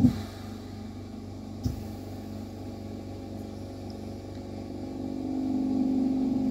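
Steady low machine hum from a lampworking torch set-up, with a sharp click right at the start and a light knock about a second and a half in. The hum grows louder again from about five seconds.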